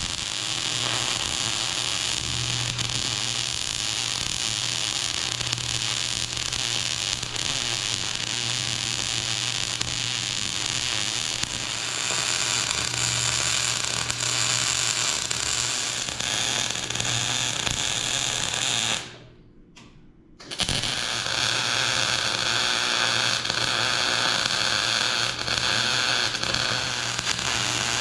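MIG welder arc crackling steadily as a bead is run on a steel axle housing's spring perch. The arc stops for about a second and a half around 19 seconds in, then strikes again and runs on.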